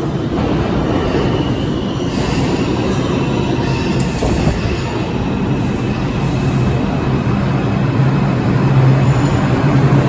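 New York City subway 5 train pulling into the station alongside the platform. It makes a steady rumble of wheels on rail, with a faint high squeal through the middle, and a low hum grows louder near the end as it slows.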